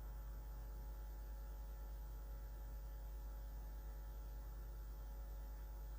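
Steady low electrical hum with faint hiss, unchanging throughout.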